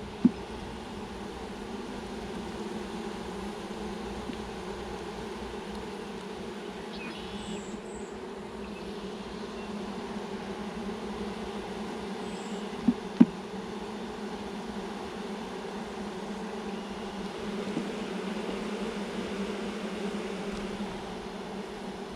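Honeybees buzzing in a steady hum around an open hive during an inspection. A sharp knock sounds just after the start, and two more come close together about 13 seconds in.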